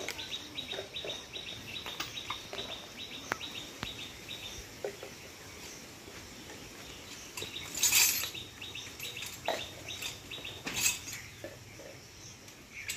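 Sharp metal clinks and clanks of tools on a power tiller's gearbox casing, the loudest about eight and eleven seconds in. Under them a bird chirps rapidly, several chirps a second, in two long runs.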